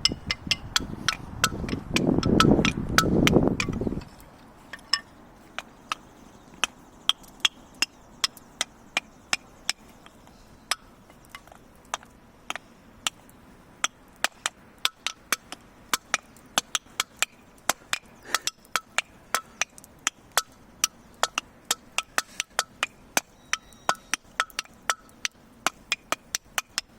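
Pieces of firewood being struck over and over, sharp hollow wooden knocks about two a second in an uneven, playful rhythm. A loud low rumble covers the first four seconds.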